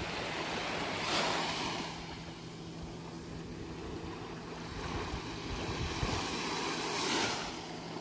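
Small waves lapping and washing up a sandy beach, with two louder washes of surf, about a second in and about seven seconds in.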